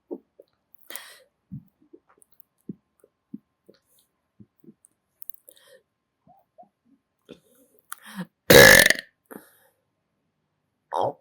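Faint mouth clicks, then one loud belch about eight and a half seconds in and a shorter, quieter belch near the end.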